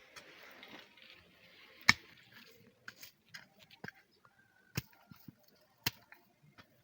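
A handful of sharp, irregular knocks or chops, the loudest about two seconds in and two more near five and six seconds, with smaller ticks between.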